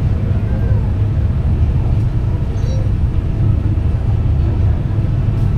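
Steady low rumble of a passenger ferry under way.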